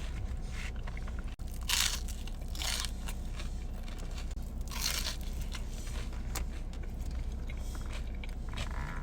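Close-miked biting and chewing of a crisp toasted chalupa shell, with several separate crunches, the loudest about two and five seconds in.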